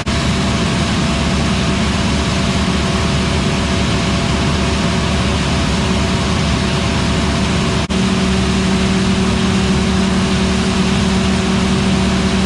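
Large diesel engine of harvest machinery running steadily, a dense engine hum with no speech. About eight seconds in there is a brief break, and after it the low hum is stronger.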